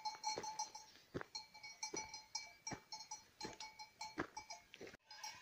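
Faint, irregular clanking of bells on a flock of grazing livestock, each strike leaving a ringing tone that hangs on.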